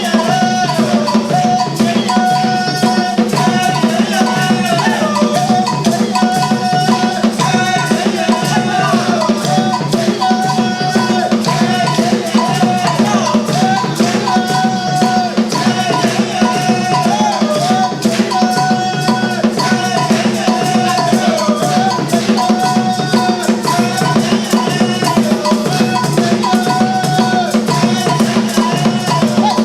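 Music with a busy, steady percussion rhythm of drums and shakers under a lead melody that slides up and down in pitch.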